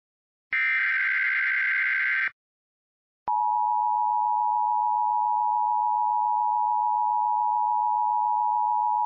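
Emergency Alert System tones: the last burst of the digital SAME header, a buzzy warbling data squeal of under two seconds encoding a Child Abduction Emergency alert, then after about a second of silence the EAS two-tone attention signal starts abruptly and holds steady and loud.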